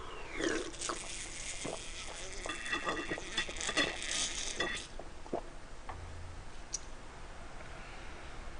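Gulping a carbonated Schweppes lemon tonic from a plastic bottle: fizzing and swallowing for about the first five seconds, then it stops.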